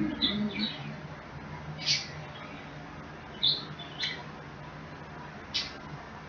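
Close-up eating sounds: short, wet lip smacks and mouth clicks, about six of them, spaced a second or so apart while food is chewed. A brief closed-mouth 'mm' comes at the very start.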